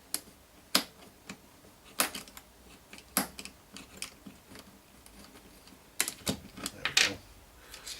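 Irregular sharp clicks and taps of small parts and hand tools being handled on a record player's speed-selector mechanism, while it is taken apart.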